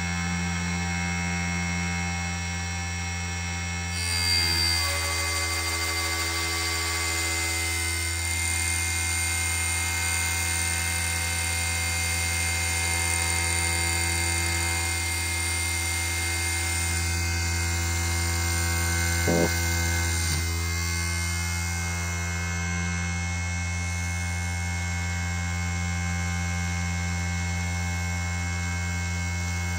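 Small converted CNC1610 lathe running a test cut, its motors giving a steady electrical hum with high whining tones. About four seconds in, extra motor tones join as the machine makes a move, shifting pitch a few times, and they drop away after a sharp click near twenty seconds.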